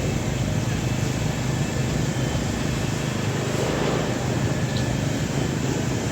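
Steady low rumble of distant engines with a constant haze of outdoor background noise.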